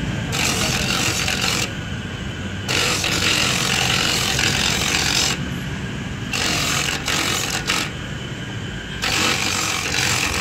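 A motorised coconut grater running steadily, with a loud rasping as coconut flesh is pressed against the spinning grater. The rasping stops three times for about a second while the coconut half is lifted and turned, and the motor hum carries on underneath.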